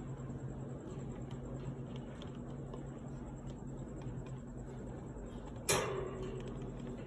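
Taurus Air Force 20-inch industrial metal fan running, a steady motor hum under a constant rush of air with faint ticking. About five and a half seconds in there is one sharp click with a brief metallic ring.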